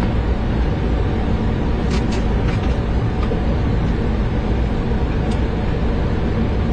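Steady flight-deck noise in a Boeing 737 in flight: a continuous rumble of airflow and engines, with a few faint clicks about two and five seconds in.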